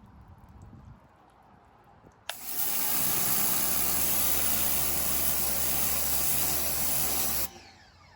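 Ryobi 1600 psi electric pressure washer starting about two seconds in with a sharp click, its motor humming steadily under the loud hiss of the water jet for about five seconds, then cutting off suddenly.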